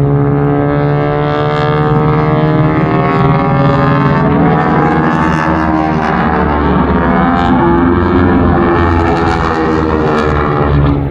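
North American AT-6 Texans' Pratt & Whitney R-1340 radial engines and propellers droning loudly in formation flight, the engine note sliding up and down in pitch as the planes pass.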